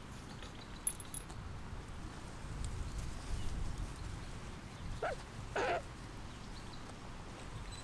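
Two short, harsh animal calls about half a second apart, the second louder and longer, over a low background rumble.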